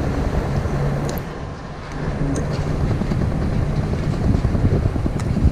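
Diesel truck engine running as the truck drives slowly away, under heavy wind buffeting on the microphone. The rumble eases briefly about a second and a half in.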